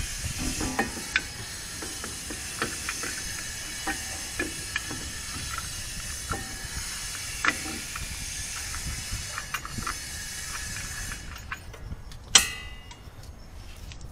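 Metal clicks and knocks as a heavy brake caliper is worked back over a brake disc rotor and its mounting bolts are started, over a steady hiss. About twelve seconds in there is one sharp, ringing metallic clank.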